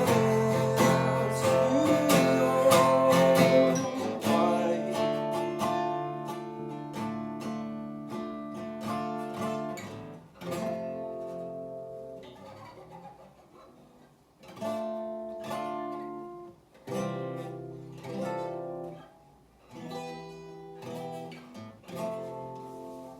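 Music: an acoustic guitar outro, strummed chords that thin out to single strums left to ring, about two seconds apart, slowly fading.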